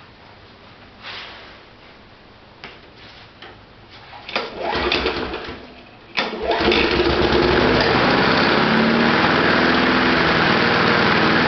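Lawnmower engine being started on heated gasoline vapor with its wicks removed: after a few light knocks, a first try about four seconds in turns it over briefly and it stops, then a second try about six seconds in catches and the engine runs steadily.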